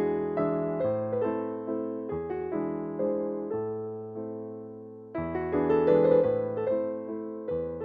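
Background piano music: chords struck one after another, each fading before the next, growing louder about five seconds in.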